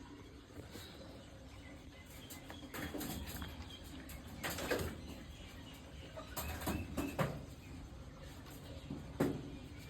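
Watercocks (kora birds) making a few short, sharp sounds a second or two apart over a steady low hum; the loudest comes a little before the middle.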